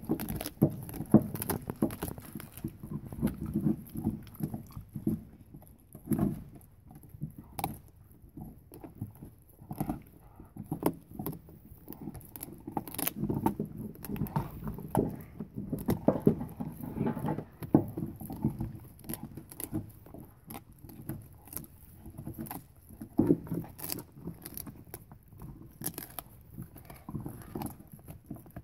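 A Carolina Dog chewing and gnawing a raw venison shoulder blade, with irregular crunches and clicks of teeth on bone, meat and sinew.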